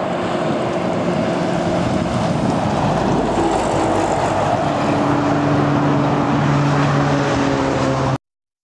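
Scania lorry pulling a tank-container trailer passing close by: its diesel engine running with steady tones under a haze of tyre and road noise. The sound cuts off abruptly about eight seconds in.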